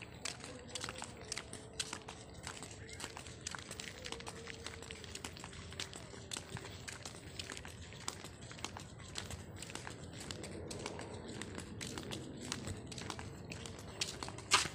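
Irregular crackling and clicking from a hand-held phone being carried while walking, with faint voices in the background that grow a little stronger near the end.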